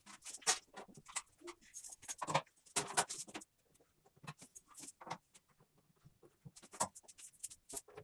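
Handling noise from speaker cables and a small power amplifier: irregular clicks, knocks and rustles as the cables are gathered and the amplifier is set on a speaker cabinet, with a quieter spell in the middle.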